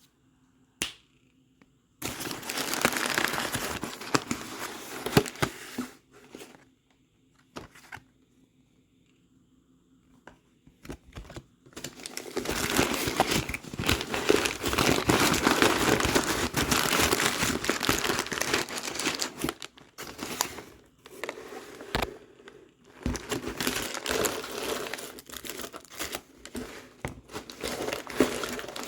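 Close, crackly crinkling and crunching from something being squeezed and handled, in long bursts from about two to six seconds in and again from about twelve seconds on, with quiet gaps between.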